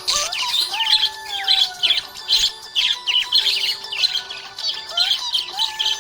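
Budgerigars chirping and chattering in a dense run of quick, high chirps and squeaks.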